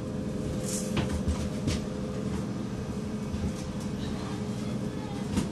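A boat's engine droning steadily on board, with a few light clicks and knocks.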